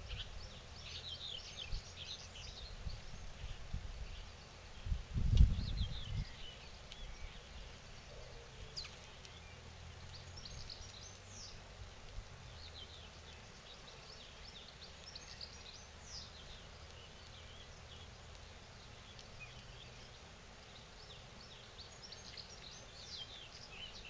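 House sparrows chirping, a steady scatter of short high chirps over a low background rumble. A dull low thump about five seconds in is the loudest sound.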